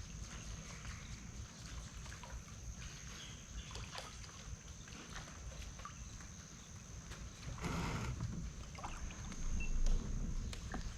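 Kayak on the water: a steady low rumble with scattered small knocks, and a louder rush of water about eight seconds in, over a thin, steady high-pitched whine.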